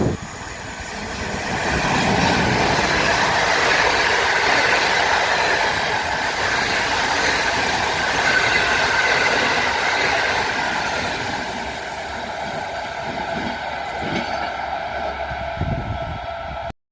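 PKP Intercity passenger train hauled by an EU160 Griffin electric locomotive passing at speed: a steady rush of wheels on rails that swells about two seconds in and eases slightly later on. The sound cuts off abruptly near the end.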